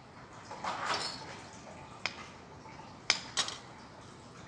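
Metal spoon and fork on a plate: a soft scrape about a second in, then a light tap and two sharp clinks just after three seconds as the utensils are set down on the plate.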